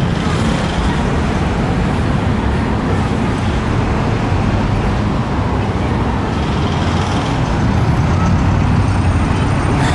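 Steady city road traffic: the continuous noise of cars and buses on a busy avenue, slightly louder near the end.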